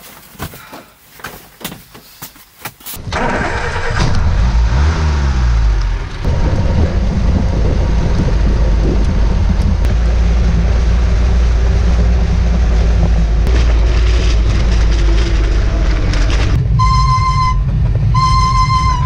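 Scattered clicks and handling sounds, then about three seconds in a vehicle engine starts running loudly as the vehicle pulls away. It rises in pitch as it gathers speed, then drones steadily with road noise. Near the end a steady high-pitched horn-like tone sounds three times.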